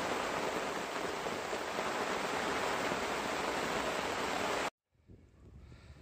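Heavy rain falling on the lake's surface, a steady hiss that cuts off abruptly near the end.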